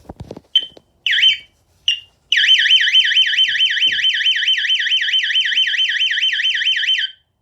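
A few knocks as the door is opened, then a SimpliSafe security alarm going off because an entry sensor was tripped with the system armed. There are three short high chirps, then its siren: a loud, rapidly warbling electronic wail, about five sweeps a second, which cuts off suddenly near the end.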